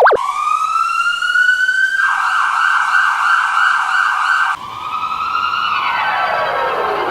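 Ambulance siren in edited variations. A wail rises for about two seconds, then a fast warble, and an abrupt cut about four and a half seconds in to another tone that climbs and then slides steadily down in pitch near the end.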